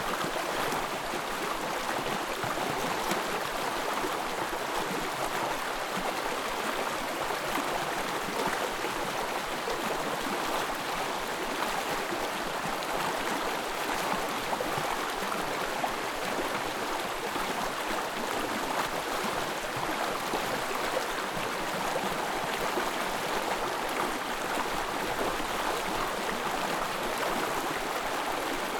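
Small forest stream running steadily, a continuous even wash of flowing water.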